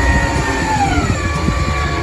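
Garbage truck's heavy engine running, with a whine over it that drops in pitch about a second in and then holds steady.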